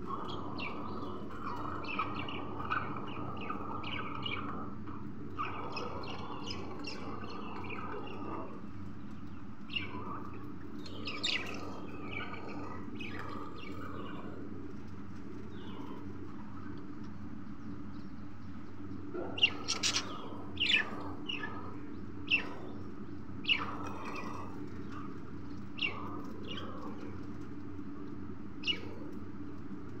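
Budgerigars chirping and chattering in short high notes, with a run of sharper, louder chirps about two-thirds of the way through, over a steady low hum.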